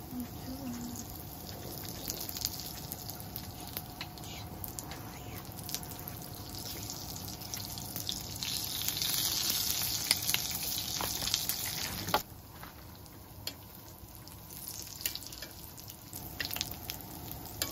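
Hotteok sizzling and crackling as they fry in plenty of oil on a griddle pan. The sizzle swells about eight seconds in as more oil goes onto the pan, then drops suddenly to a much quieter hiss about twelve seconds in.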